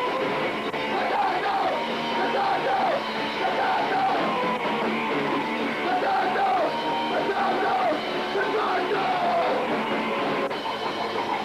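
Punk band playing live, with shouted vocals over a dense wall of amplified band sound.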